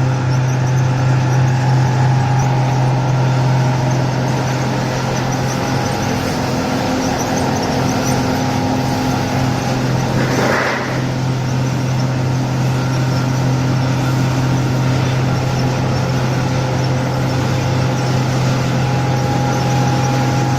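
Sawdust briquette machine running: a loud, steady mechanical hum with a low drone and a few steady higher tones over a constant grinding noise, with a brief louder rush of noise about halfway through.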